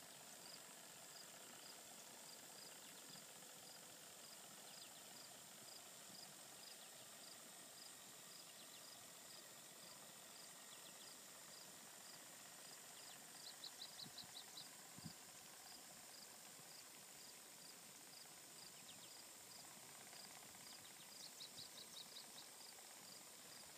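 Near silence: faint outdoor ambience with a small high-pitched chirp repeating about twice a second, and a short rapid trill about halfway through and again near the end.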